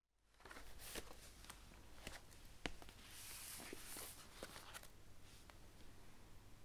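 Faint indoor room tone with a low hum, scattered small clicks and knocks, and a short soft hiss about three seconds in.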